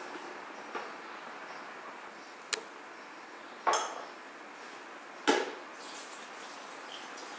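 Glass kitchenware knocking on a stone countertop: three sharp clinks and knocks about a second apart, the middle one the loudest, as a glass bowl and measuring jug are set down and picked up beside a plastic blender jar.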